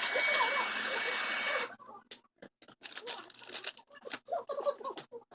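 A motorised cleaning tool blowing or sucking air with a loud, steady rushing hiss and a thin high whine. It cuts off abruptly about a second and a half in, followed by scattered light clicks and knocks of parts being handled.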